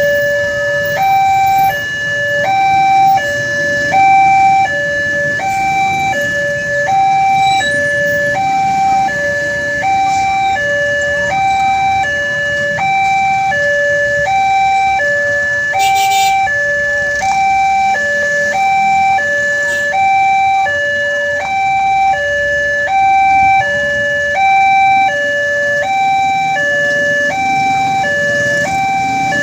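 Indonesian railway level-crossing warning alarm sounding: an electronic two-tone signal alternating between a lower and a higher note, about one full cycle a second. It starts suddenly, and a single sharp click falls about halfway through.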